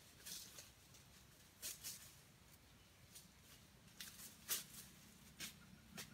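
Faint, brief crackles and rustles in dry leaf litter, several scattered ones with quiet between, from a red junglefowl rooster stepping about on the forest floor.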